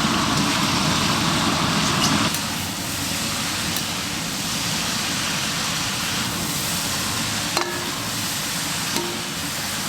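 Chopped vegetables frying in a pan with a steady sizzle that eases slightly a couple of seconds in, with two light knocks of a spoon against the pan later on.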